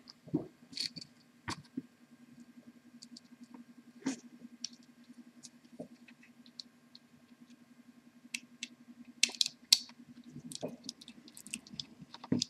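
Scattered small clicks and taps of pliers and a screwdriver handling a slow juicer's plastic motor housing, busiest in the last few seconds, over a faint steady hum.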